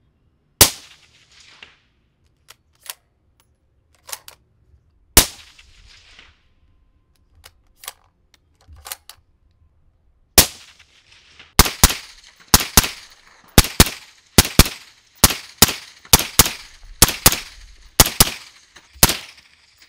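Suppressed rifle shots through a Huxwrx Ventum 556 flow-through suppressor: two single shots about four and a half seconds apart, with a few fainter clicks between them. About halfway through comes a rapid string of shots, roughly two a second, each with a short ringing tail.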